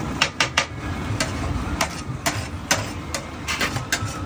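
Metal spatula and masher knocking and scraping on a large flat tawa as pav bhaji is mashed and spread: a string of irregular sharp clinks over a steady low rumble.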